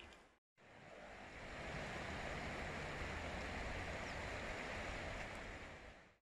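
Steady rushing of river water. It fades in after a moment of silence near the start and fades out again near the end.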